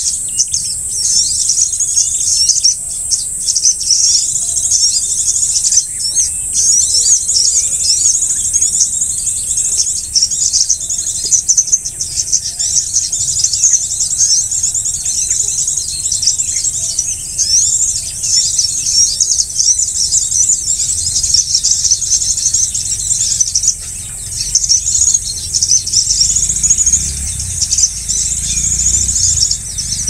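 Small birds chirping densely and without pause in quick, high-pitched notes, over a steady high insect-like hiss.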